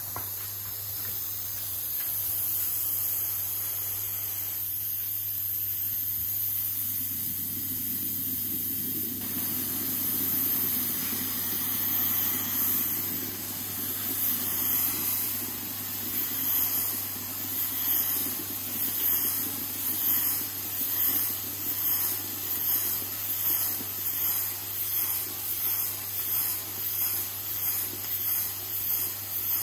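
Bialetti moka pot on an induction hob, hissing steam from its spout as it keeps boiling. About halfway through the hiss turns into rhythmic spurts, roughly one a second, growing as the pot blows clouds of steam.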